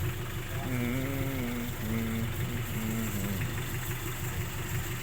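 A steady, low engine hum at idle runs throughout. Over it, a voice faintly sings a few held, sliding notes during the first few seconds.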